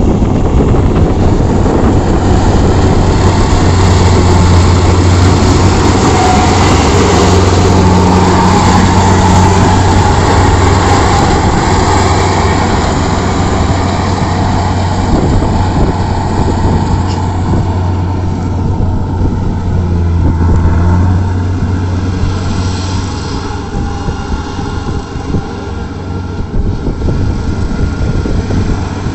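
Rice combine harvester at work cutting and threshing paddy: its engine runs with a steady low hum under the dense rattle and whir of the cutting and threshing machinery. It gets somewhat quieter about two-thirds of the way in.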